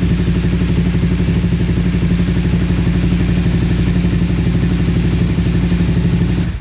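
Motorcycle engine running steadily with an even, rapid pulse after starting on a freshly charged battery, then cutting off near the end.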